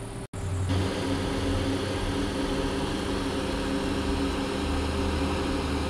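Electric motor of a quarter-scale model streetcar humming steadily, a low drone with a whine of several steady tones. The sound cuts out for an instant near the start and comes back louder just under a second in.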